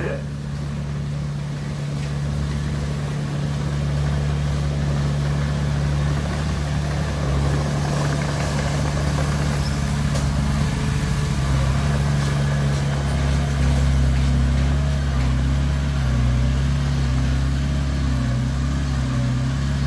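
Heavy diesel engine running steadily at low revs, growing slightly louder about four seconds in.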